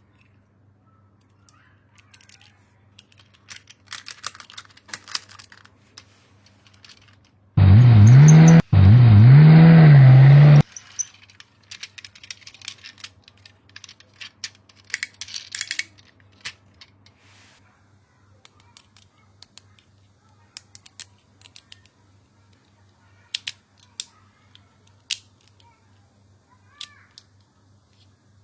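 Toy unboxing handling: scattered clicks, taps and crackles of plastic packaging and toy parts. About eight seconds in, a loud electronic sound with a wavering pitch plays for about three seconds, with a short break just after it starts.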